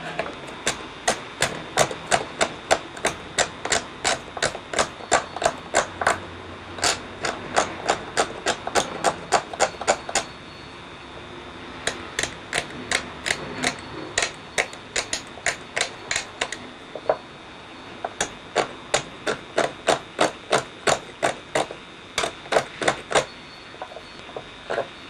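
Small hand carving chisel cutting into a wooden netsuke figure in short strokes, each stroke a sharp click, about three a second. The clicking pauses twice, for about a second and a half around the middle and briefly a little later.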